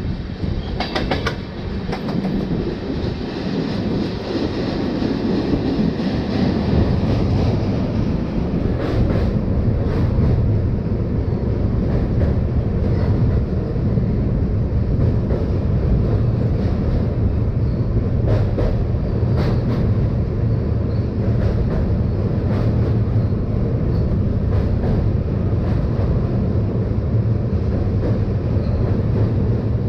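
Passenger train running on the rails: a steady low rumble that builds over the first several seconds and then holds, with occasional clicks from the wheels.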